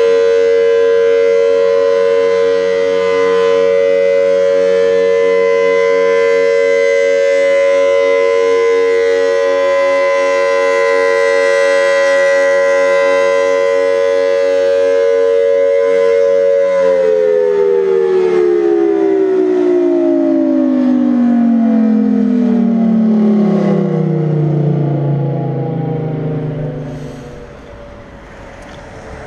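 Outdoor tornado warning siren sounding its test: a loud, steady tone made of two close notes, then about 17 seconds in it winds down, its pitch falling and the sound fading away over about ten seconds.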